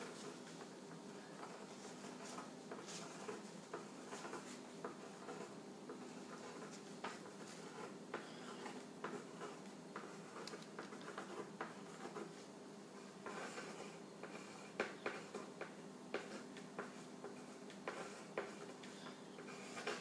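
Faint small taps and scrapes of paintbrushes working paint at a table, scattered clicks that come thicker in the last several seconds, over a low steady room hum.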